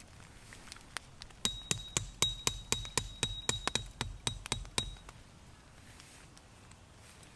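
A hammer driving a metal tent stake: about fifteen quick strikes, roughly four a second, each ringing with a high metallic tone, stopping after about three seconds.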